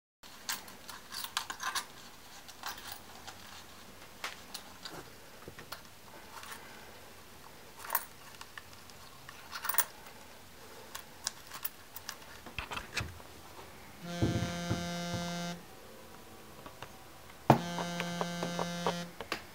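Scattered small clicks and taps of handling, then an LG mobile phone's incoming-call alert going off twice, each time a steady pulsing tone about a second and a half long.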